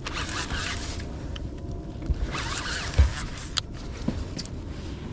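Conventional fishing reel being cranked to wind line in while fighting a fish, a rasping whir that comes in two spells, with a few clicks and a knock about three seconds in over a low rumble.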